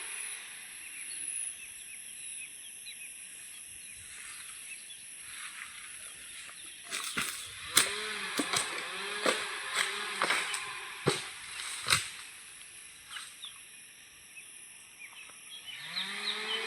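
Husqvarna chainsaw coming off the throttle at the start and revving up again near the end. In between, a run of sharp cracks and knocks comes about seven to twelve seconds in.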